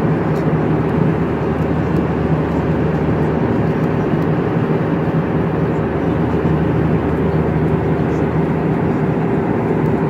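Steady airliner cabin noise in cruise: the jet engines and the airflow over the fuselage make an even rushing drone with a constant low hum, heard from a window seat beside the engine.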